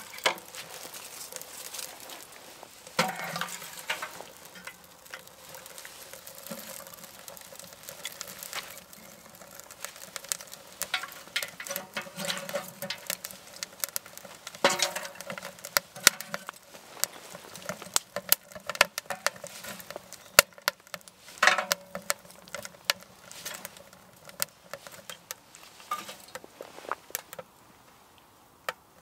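Kindling fire crackling and popping in the open firebox of a Frontier tent stove, with sharp snaps scattered irregularly throughout. It quietens just before the end.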